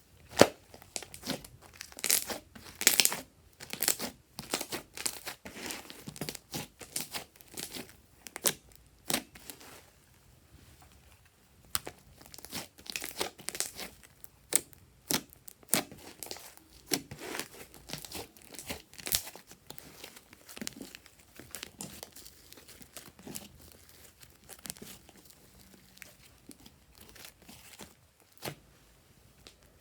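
Slime being squished, stretched and poked by hand, giving irregular sticky crackles and pops, with a short lull about ten seconds in.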